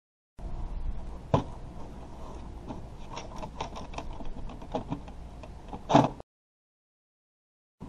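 Computer case panels being handled and wiped with a cloth on a wooden table: rubbing with scattered small clicks and knocks, a sharper knock about a second in and another near six seconds. The sound cuts off abruptly just after that.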